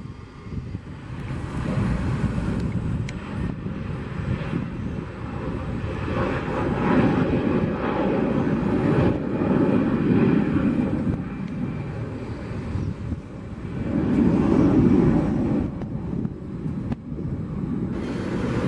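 Turbofan engines of jet airliners taking off and climbing out: a loud, dense low rumble that swells and eases several times, loudest about fourteen to fifteen seconds in. It changes abruptly a few times where separate recordings are cut together.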